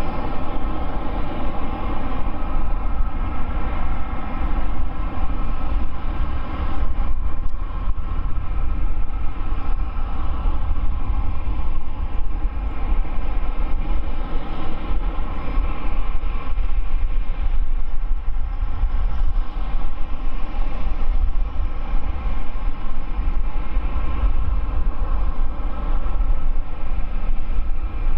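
Boeing 787-9's two Rolls-Royce Trent 1000 turbofans running steadily at taxi power: a whine of several steady tones over a low rumble.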